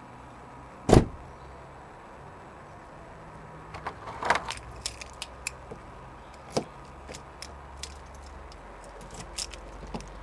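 Lock pick and tension tool worked inside a car door lock: one loud sharp knock about a second in, then a run of small metallic clicks and rattles as the pick is raked.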